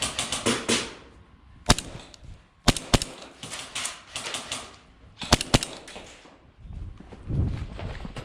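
Airsoft guns firing: a quick cluster of sharp cracks at the start, then single shots and short groups of two or three cracks spread through the next few seconds.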